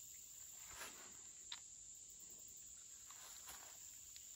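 Near silence: a faint, steady high-pitched insect chorus, with a couple of faint ticks.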